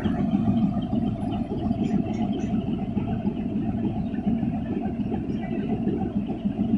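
Diesel locomotive engine idling, a steady low rumble with a constant hum above it.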